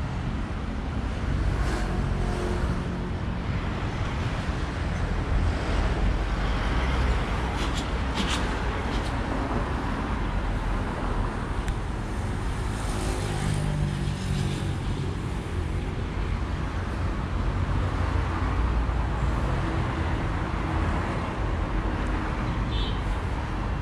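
Road traffic: a steady rumble of cars driving along a city street, with a few brief clicks about eight seconds in.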